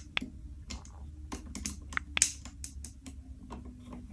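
Irregular electrical crackling from a loosely connected wire at a light switch terminal with the lamps on: arcing at a bad connection, the switch sizzle that can lead to overheating and fire. A faint steady low hum runs underneath.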